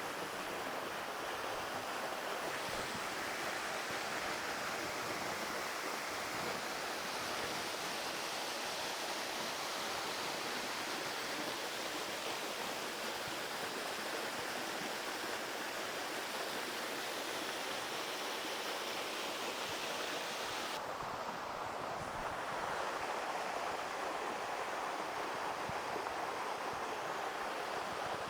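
Steady rushing of a tall waterfall pouring over a cliff. About three-quarters of the way through, the hiss suddenly loses its highest edge and turns a little duller.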